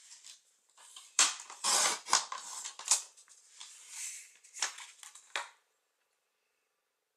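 Sliding blade of a Fiskars paper trimmer pushed along its rail, cutting through a sheet of card with a rasping scrape over about two seconds. Then a shorter scrape and two sharp knocks as the trimmer and the cut piece are moved on the wooden table.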